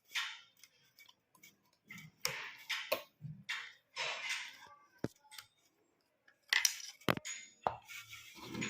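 Light metallic clicks, taps and scraping of a screwdriver and small screws as the wire leads are undone from a ceiling fan's capacitor terminals, with a couple of sharper knocks about five and seven seconds in.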